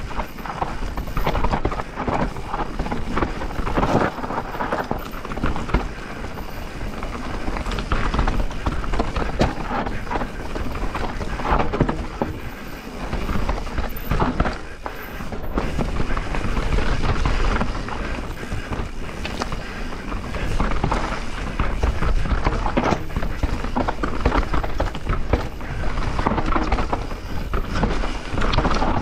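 Mountain bike descending a rough trail at speed: tyres running over dry, loose dirt and roots, with the chain, frame and suspension clattering on every bump and wind rushing over the camera microphone.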